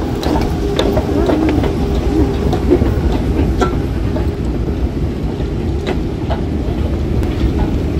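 KONE moving walkway running with a steady low rumble, with occasional light clicks.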